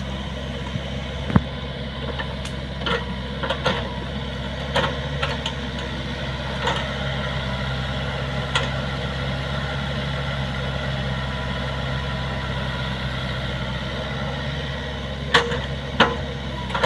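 Komatsu PC45MR mini excavator's diesel engine running steadily while the machine digs. Short sharp knocks come now and then, the loudest two close together near the end.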